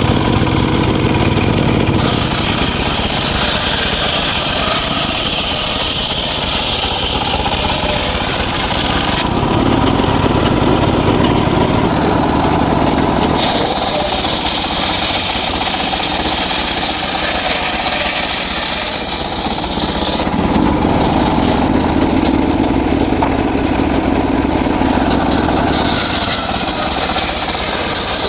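Engine-driven wood saw running continuously and cutting through hardwood in repeated bouts: the sound goes higher and harsher while the blade is in the wood, three times, and drops back to a lower running note in between.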